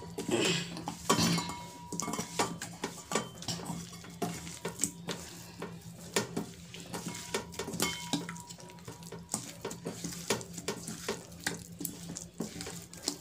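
Hand mixing raw rawas fish pieces into wet spice paste in a stainless steel bowl: many irregular clinks and taps of fingers and fish against the steel.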